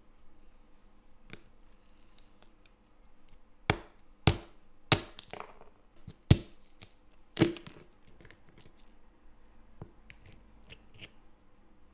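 Hardened caramelized pecan topping cracking. Five loud, sharp snaps come in the middle few seconds, with smaller crisp clicks and crunches before and after.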